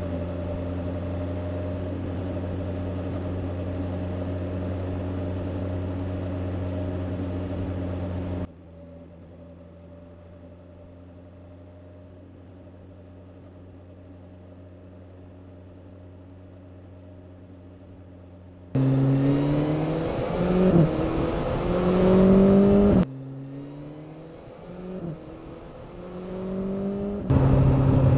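Motorcycle engine heard through a clip-on mic inside a bag with a foam windscreen. It runs at a steady pitch for about eight seconds, then runs at a quieter steady pitch. About two-thirds of the way in it gets louder, with the pitch rising and falling as the bike accelerates. The sound is a string of short clips joined by abrupt cuts.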